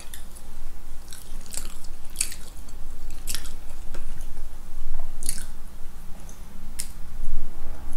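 Close-up chewing of a soft Krispy Kreme doughnut, with a scattering of short, sharp wet mouth clicks and smacks several times through.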